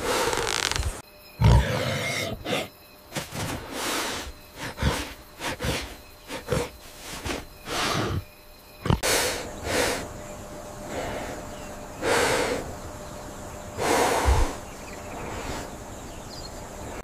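A wild animal making a run of short, rough calls, one or two a second, with a few longer, louder calls in the second half.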